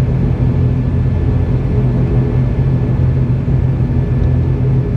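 ATR72-600's Pratt & Whitney Canada PW127-series turboprop engine running steadily on the ground at low power, its propeller turning slowly, heard from inside the cabin: a loud even drone with a thin high whine over it.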